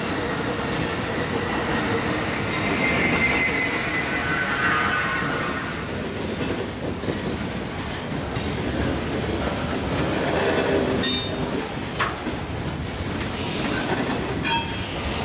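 Metra Electric Highliner electric multiple-unit commuter train running past and away on the rails: a steady rumble of wheels on track, a wheel squeal that glides down in pitch a few seconds in, and scattered sharp clicks over rail joints later on.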